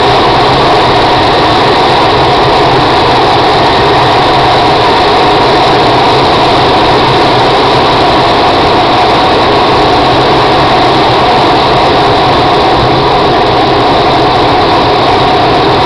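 Steady engine drone and air rush heard from inside a glider's cockpit under aerotow: the light tow plane's engine ahead, mixed with airflow over the canopy, holding even throughout.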